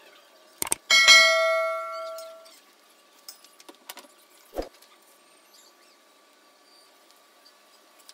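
Subscribe-button animation sound effect: a quick double mouse click, then a bright bell ding that rings out and fades over about a second and a half. A dull knock follows a few seconds later.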